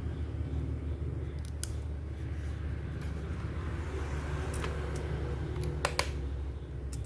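Several small sharp clicks and ticks, the sort made by handling a phone's plastic parts and small tools, over a steady low hum.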